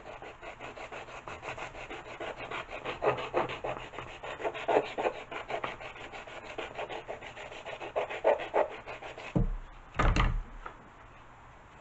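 Sanding block rubbed back and forth in quick strokes on the end of a carbon-fibre tail boom, easing it because it fits too tightly. Near the end, two knocks as the wooden block is put down on the table.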